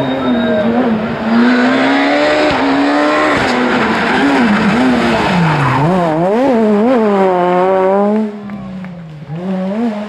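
Rally car engine at high revs as the car climbs toward a hairpin. The revs then drop and rise sharply several times as it brakes and takes the corner, fading after about eight seconds as the car pulls away.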